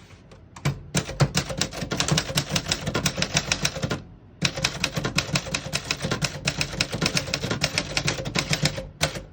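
1965 Remington Premier portable typewriter being typed on: a fast run of key strikes, a short break about four seconds in, then another fast run of strikes. The keys type cleanly, without skipping or sticking.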